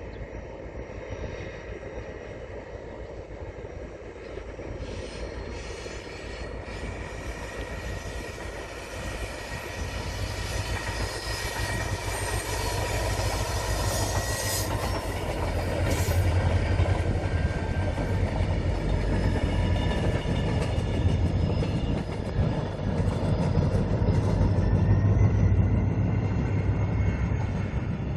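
Diesel locomotive hauling a short passenger train past, its engine rumble and wheel noise growing louder as it approaches and staying loud as it passes. A couple of sharp clicks sound about halfway through, and the sound eases a little near the end.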